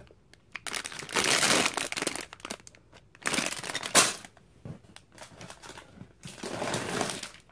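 Clear plastic LEGO parts bags full of bricks crinkling as they are handled, in three bursts about a second long each with small clicks between. The middle burst ends in a sharp, louder crackle.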